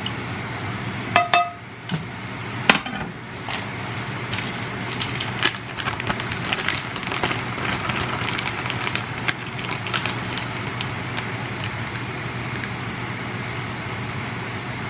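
Household handling noises: a couple of ringing clinks about a second in and a sharp knock, then a run of light clicks and rustling over a steady hum.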